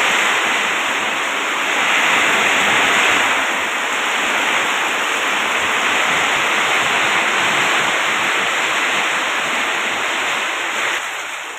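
Heavy rain pouring down, a steady dense hiss of falling water that eases slightly near the end.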